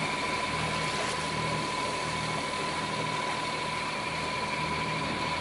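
A sailboat's inboard diesel engine running steadily while the boat motors along at about 4 knots, a low hum that pulses gently. A thin, steady high tone sounds alongside it.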